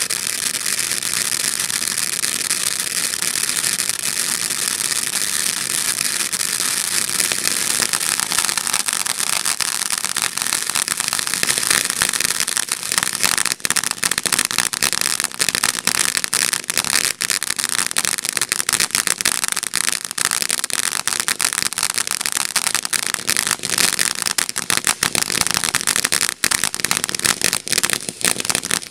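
World Class Fireworks 'Reflection' ground fountain burning, giving off a steady hiss of spraying sparks. Dense crackling builds up from about halfway through.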